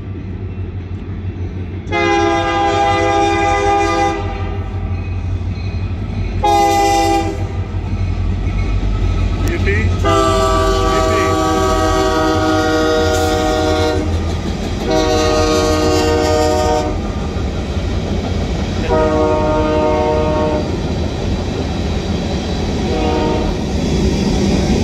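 Union Pacific diesel locomotive's multi-chime air horn sounding about six blasts, long and short, the warning for a grade crossing. A steady low rumble of the passing locomotives runs beneath the horn.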